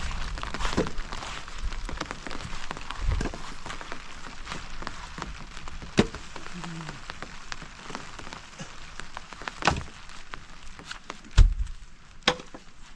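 Rain falling on a surface: a steady hiss full of small drops, with a handful of louder single drips or taps scattered through it.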